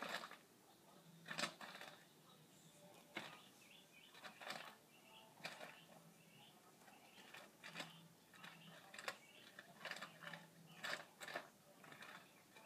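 Faint, irregular clicks and crackles of a squirrel rummaging in a plastic dog-food bag and crunching kibble.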